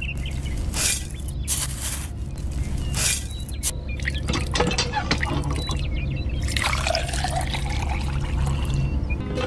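Water poured from a small tin bucket into a toy concrete mixer's drum, splashing and trickling for a couple of seconds near the end. In the first few seconds there are short scrapes of dry cement mix being scooped. A steady low hum runs underneath.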